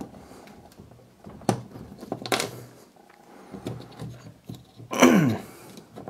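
Small metal trigger parts of an ISSC MK22 being handled: scattered clicks and light scraping as the hammer spring and strut are worked loose, with a louder, short sound of falling pitch about five seconds in.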